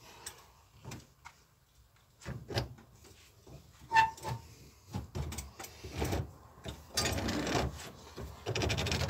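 Hand-turned valve seat cutter scraping metal as it cuts the valve seat in a diesel walk-behind tractor's cylinder head: scattered clicks, a sharp metallic clink about four seconds in, and two rasping cutting strokes near the end.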